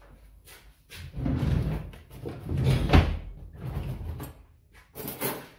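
Handling noise: low thumping and rubbing for about three seconds, with one sharp knock about three seconds in.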